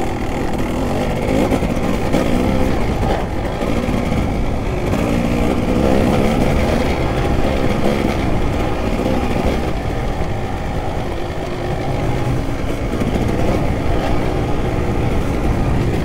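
Kawasaki KX250 dirt bike engine running under way, its pitch rising and falling as the throttle is worked.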